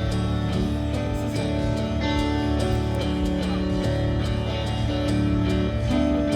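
Background music led by guitar, with steady sustained chords and regular plucked or strummed notes.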